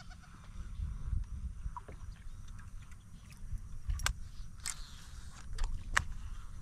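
Water sounds around a fishing kayak, with a few short sharp splashes or knocks between about four and six seconds in over a steady low rumble, as a fish that has just been hooked is brought in.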